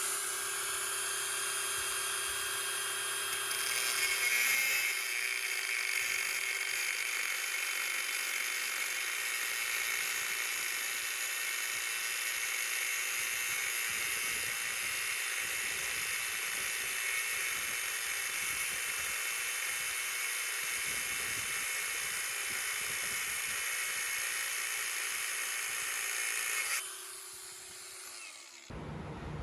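Ingco cordless brushless angle grinder cutting through a metal chain with a cutting disc, making a steady high grinding. It stops near the end, with a brief quieter run-down before going silent.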